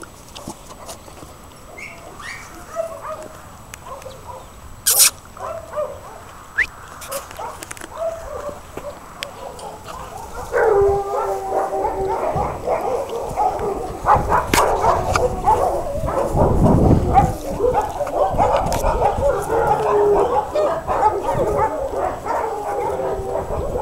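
A dog whining and yelping with excitement. The calls are sparse and quieter at first, then about ten seconds in they become louder and nearly continuous, with high drawn-out whines.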